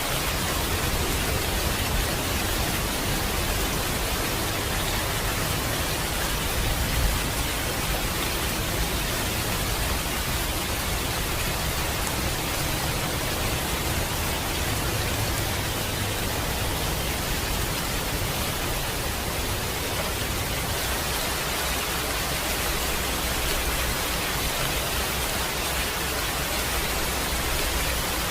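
Steady, heavy rainfall: a dense, even hiss of rain.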